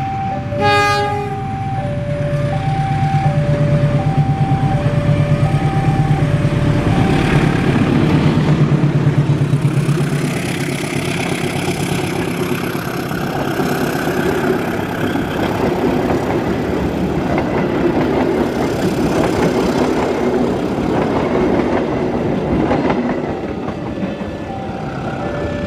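Diesel-electric passenger train departing and passing: a short horn blast about a second in, the steady low drone of the locomotive's engine, then the rumble and clatter of the passenger cars running past. A two-tone warning signal alternates high and low through the first several seconds and comes back near the end.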